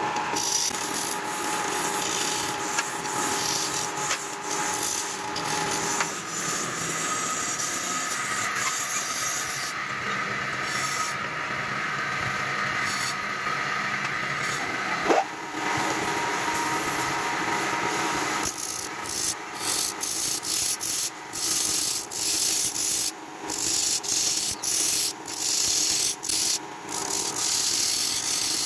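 Turning chisel scraping and cutting a wooden fishing-reel ring spinning on a lathe: a steady rasping of wood. There is a brief squeal about halfway through, and from about two-thirds in the cutting comes in short strokes with small gaps.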